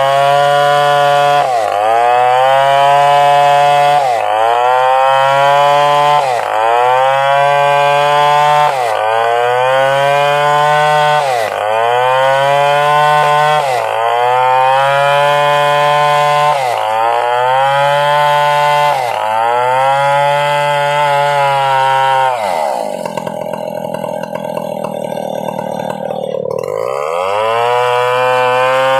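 Stihl chainsaw cutting a coconut-palm trunk, its engine note dipping and recovering about every two and a half seconds as the chain bites. Near the end it is pulled down low for several seconds with a rough hiss, then revs back up.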